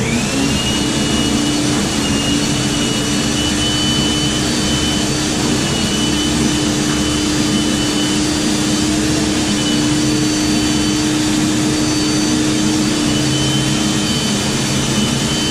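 RIDGID K9-306 flex-shaft drain machine running, spinning its cable inside a grease-clogged 3-inch drain line. It makes a steady high whine over a lower hum, rising in pitch as it spins up at the start.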